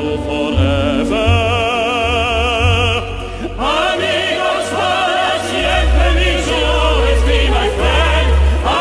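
Music: an operatic ballad, with sustained vibrato singing over orchestra, choir and a heavy bass.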